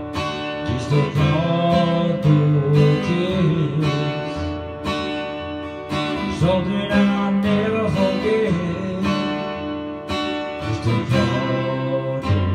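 Acoustic guitar strummed in a steady rhythm, with a man's singing voice over it at times.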